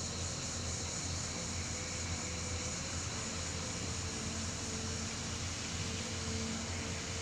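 An engine running steadily, with a low hum, faint steady tones and a constant hiss.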